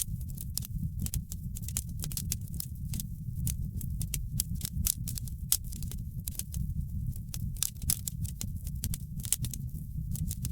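Wood fire in a fireplace crackling: many sharp, irregular pops and snaps over a steady low rumble.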